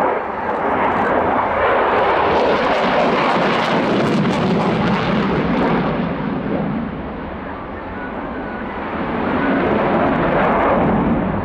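Eurofighter Typhoon fighter jet's twin EJ200 engines in a hard 9G break turn in front of the crowd: a loud, steady jet rush that fades somewhat after the middle and swells again near the end.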